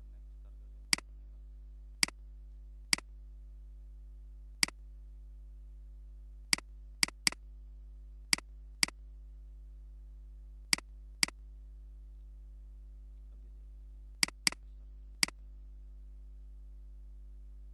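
Computer mouse clicks: about fourteen sharp single clicks at irregular intervals, some in quick pairs, over a steady low electrical hum.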